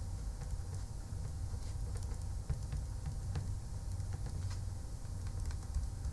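Low steady background rumble with faint scattered clicks and taps.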